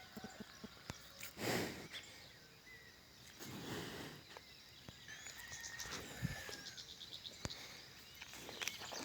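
Small birds chirping in short high calls, mostly in the second half, over outdoor ambience. Two brief swells of rushing noise come about one and a half and four seconds in, the first the loudest.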